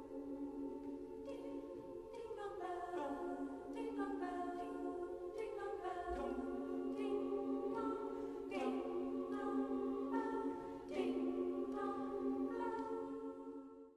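Chamber choir singing quietly and unaccompanied in slow, held chords that change every second or so, breaking off abruptly at the end.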